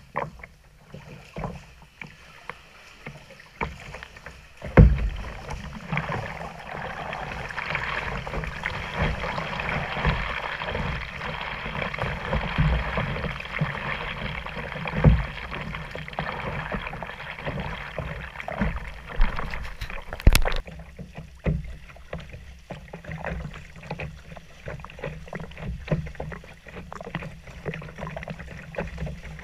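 Kayak paddling: paddle strokes and splashing water, with many sharp knocks and clicks and a few heavy low thumps, the loudest about five seconds in. A rushing wash of water builds from about six seconds in and cuts off suddenly about twenty seconds in.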